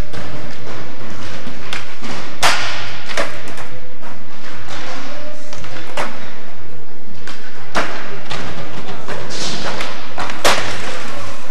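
Music playing under the sharp, irregular knocks of a skateboard: the board popping and landing on the skatepark's wooden ramps and concrete floor, the loudest one near the end.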